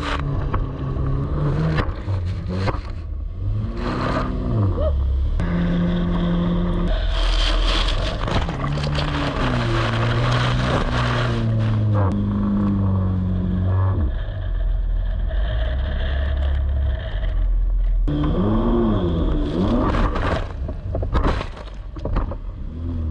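Jet ski engine revving up and down again and again as it drives through whitewater, over the rush of spray and wind on a camera mounted on the craft. There is a quick rise-and-fall rev about two-thirds of the way in, and the sound cuts off abruptly at the end.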